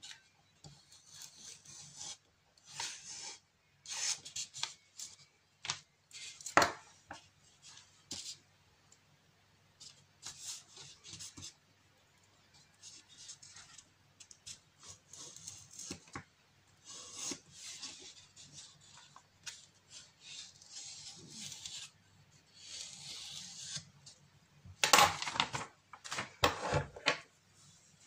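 Scissors snipping through printed paper, with short, irregular bursts of cutting and paper rustle, and a few louder clatters of hard objects about 25 seconds in.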